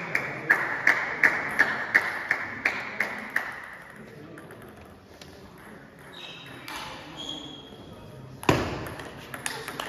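A table tennis ball bounced over and over in a quick, even rhythm of nearly three bounces a second, stopping about three and a half seconds in. Near the end comes a loud thud, then a few quick clicks of the ball in play.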